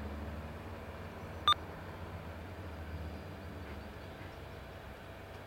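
A single short electronic beep from an air-band radio, about a second and a half in, over a low steady rumble that slowly fades.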